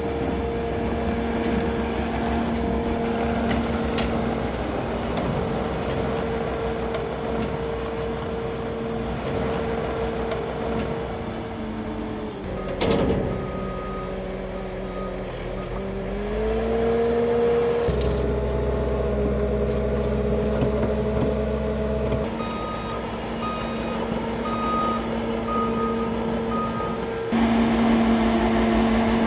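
Diesel engines of heavy machinery running steadily, the sound changing abruptly several times at cuts between machines. About halfway through there is a sharp knock, and then an engine's pitch rises. Later an intermittent beeping, like a reversing alarm, sounds over the engine.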